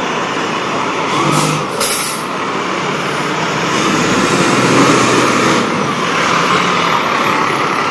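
Fire truck's diesel engine pulling away and driving past close by, growing louder as it passes, with two short, sharp air-brake hisses about a second and a half in.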